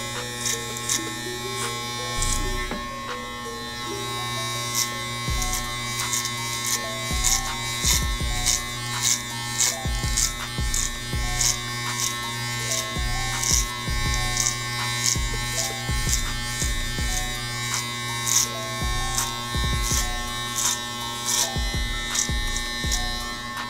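Andis Master electric hair clippers buzzing steadily as they cut short hair, under background music with a regular beat.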